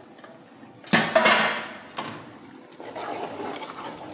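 Water running into a cooking pot, with a loud clatter of the pot about a second in, then a steady pour.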